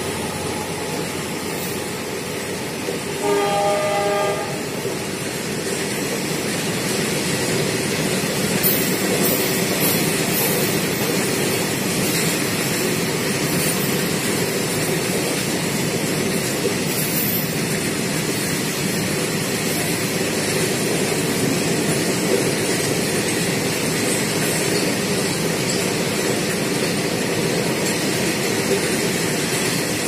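Covered freight wagons of a long goods train rolling past at speed, a steady rumble and rattle with the clickety-clack of wheels over rail joints. A short horn blast sounds about three seconds in.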